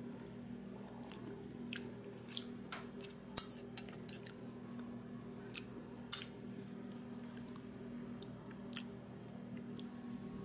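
A person eating butter beans and cornbread from a plate with a spoon: short sharp clicks of the spoon on the plate and mouth noises of chewing, mostly in the first half, over a steady low hum.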